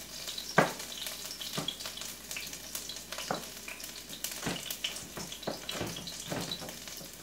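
Shallots sizzling in hot vegetable oil in a stainless sauté pan, a steady hiss, while a chef's knife chops a bell pepper on a cutting board, striking the board about once a second with a sharp knock.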